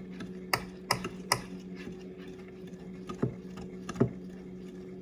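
Kitchen containers and utensils being handled: three sharp clicks in quick succession in the first second and a half, then two duller knocks a little under a second apart, over a steady low hum.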